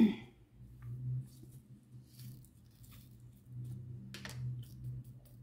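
Faint clicks and rattles of small hinged plastic storage containers and diamond-painting drills being handled, with one sharper plastic click about four seconds in, over a steady low hum.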